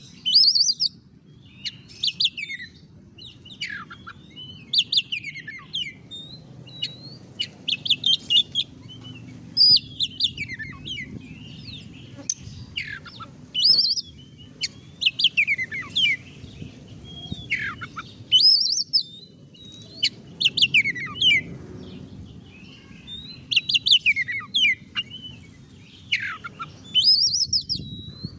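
Oriental magpie-robin singing in full voice: loud, varied phrases of quick falling whistles and chattering notes, one phrase every second or two.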